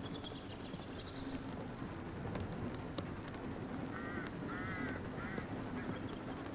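Steam locomotive Duchess of Hamilton, an LMS Princess Coronation class 4-6-2, working its train: a steady rush of steam and exhaust. A few short bird calls come about four seconds in.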